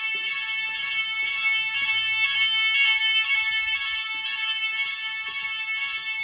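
Nugelec addressable fire alarm sounding a continuous, unbroken electronic tone during a system test.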